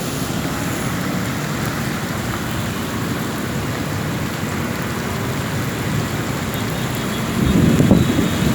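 Heavy rain falling steadily, with road traffic under it. A louder low rumble rises near the end.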